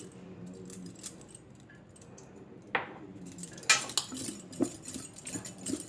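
Scattered clinks and knocks of a bowl and utensil as potato pieces are tossed and mixed in a flour coating, with the loudest clatter a little past the middle.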